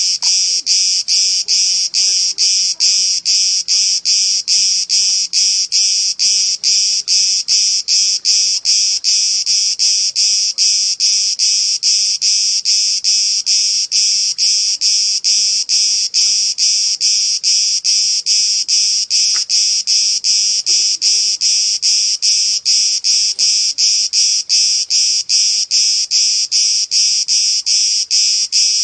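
Cicadas calling: a loud, high-pitched buzzing that pulses evenly, about two to three pulses a second.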